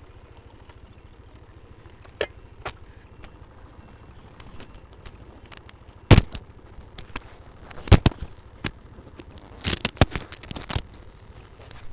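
Lavalier microphone being handled and adjusted: scattered sharp knocks and rubbing clicks, with loud clusters about six, eight and ten seconds in, over a faint low rumble.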